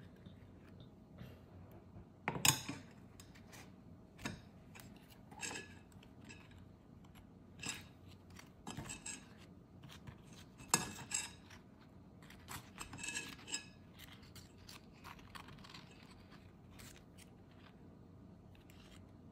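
Kitchen utensils and dishes making scattered light clinks, taps and scrapes, the loudest about two and a half seconds in and again around eleven seconds in.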